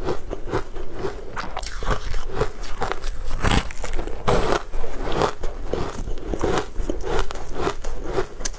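Close-miked eating sounds: a person biting and chewing pieces of crumb-coated green sponge cake, a dense run of small crunches and clicks.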